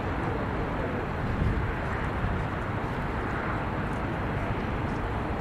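Steady outdoor ambience: a continuous low rumble and hiss with no distinct events standing out.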